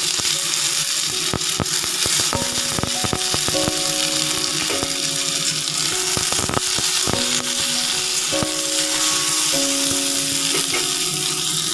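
Tomato wedges sizzling in hot oil with dry chilli and mustard seeds in a kadai, with clicks and scrapes from a metal spatula against the pan. Background music with held notes plays over it.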